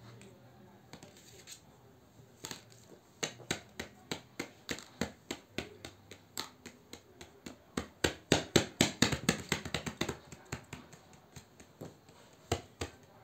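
Small hard items being handled and set down on paper over a carpet: a run of sharp clicks and taps that starts a couple of seconds in, quickens and is loudest about eight to ten seconds in, then thins out.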